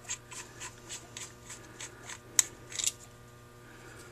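Light metal clicks of small Holley 1904 carburetor parts being handled during disassembly: faint, evenly spaced ticks about four a second, then a sharper click about halfway through and a brief clatter just after.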